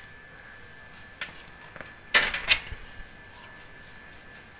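Upright bicycle rattling and clattering as it is wheeled and mounted: a short knock about a second in, then a louder burst of rattles around two seconds in.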